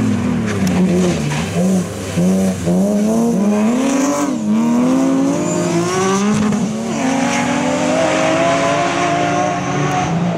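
Rally car engines revving hard on a special stage, the pitch climbing and dropping back over and over with each shift and lift. The swoops come in quick succession early on, then longer rising pulls. A second car's engine is in the mix toward the end.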